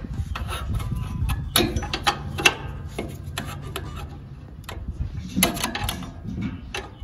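Irregular clicks and metal clinks from a wrench working the oil drain plug loose.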